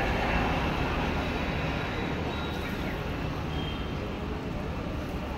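Battered paneer deep-frying in hot oil in a wok, a steady sizzle over a low, continuous rumble.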